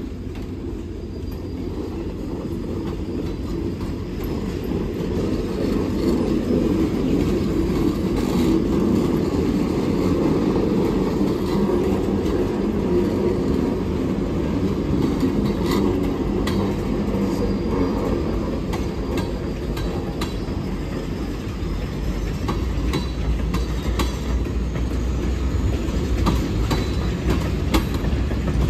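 Freight train cars, gondolas and tank cars, rolling past close by: a steady rumble of steel wheels on rail, with sharp clicks and clanks of wheels over rail joints coming more often in the second half, and now and then a faint high wheel squeal.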